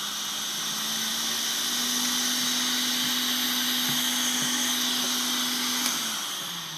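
Quick 861DW hot air rework station blowing at a flow setting of 80: a steady rush of air over the hum of its blower fan. Near the end the fan winds down, its hum falling in pitch as the airflow fades.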